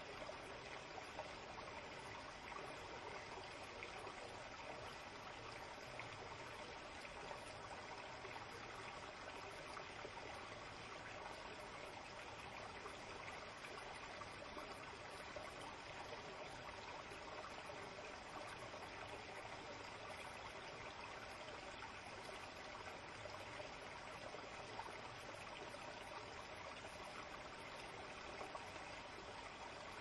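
Shallow stream flowing steadily, a faint, even trickle and rush of water over rocks.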